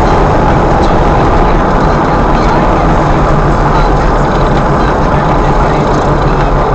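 Steady engine and road noise from inside a moving vehicle's cab.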